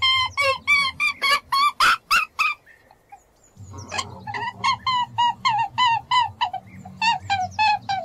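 Rabbit squealing: a rapid run of short, high, pitched calls, about four or five a second, that breaks off for about a second midway and then starts again, over a low steady hum.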